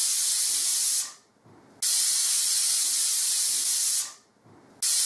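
Stovetop pressure cooker whistling: its weighted whistle valve vents steam in a steady, loud high hiss, the sign that the cooker is at full pressure. The hiss fades out about a second in, starts again abruptly, fades again about four seconds in, and starts once more near the end, as whistles are counted toward three.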